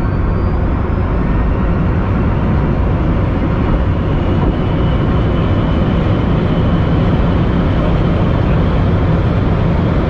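Rimac Nevera quad-motor electric hypercar accelerating flat out from about 160 to over 320 km/h, heard inside the cabin. A loud, steady roar of wind and tyres carries a faint high electric-motor whine over it.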